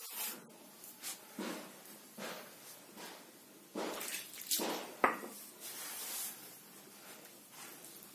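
Hands rubbing and pressing flour into chakli dough on a wooden board: soft, irregular swishes and pats, with one short sharp click a little after five seconds in.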